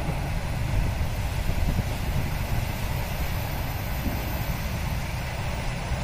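Storm wind buffeting the microphone: a steady, wavering low rumble with a hiss of wind above it.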